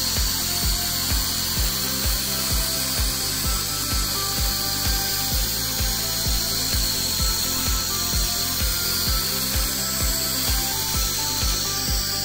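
Handheld 1500 W fiber laser cleaning gun ablating rust from a steel plate: a loud, steady hiss with sparks that stops abruptly near the end as the laser is released. Background music with a steady beat plays underneath.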